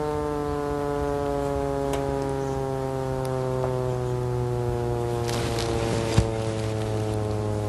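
Hydrogen flame burning in a plastic soda bottle, with the bottle sounding a steady hooting tone rich in overtones that slowly falls in pitch. Crackling comes in about five seconds in, and a single sharp pop follows about a second later.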